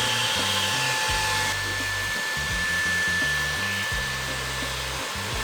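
Dreame T20 cordless stick vacuum running with its crevice nozzle: a steady rushing hiss of suction over a high, even motor whine. About a second and a half in the sound shifts, the hiss thinning and a lower whine dropping away.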